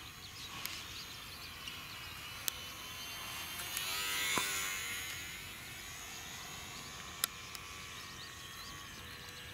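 Small electric motor of a park-flyer RC airplane buzzing faintly, swelling to its loudest about four seconds in and fading again, with birds chirping.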